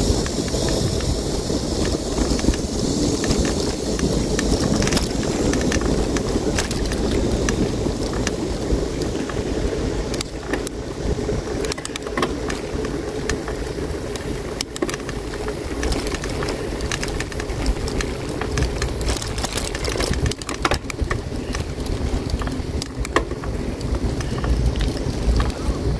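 Bicycle riding noise: a steady low rumble of tyres and moving air, with scattered clicks and rattles from the bike.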